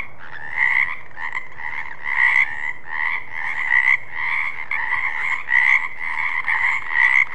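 Frogs croaking in a continuous chorus, with louder calls recurring about every half second.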